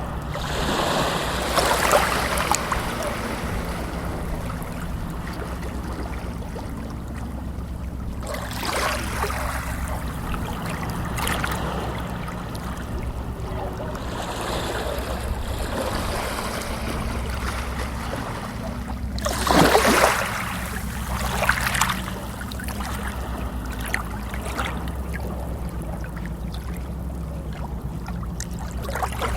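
Running water with a steady low rumble underneath and occasional louder splashing surges, the loudest about twenty seconds in.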